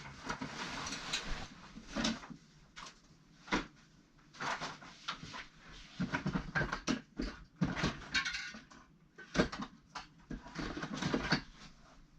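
Irregular handling noise: scattered knocks, clicks, rustling and low thumps as objects are picked up, carried and rummaged through.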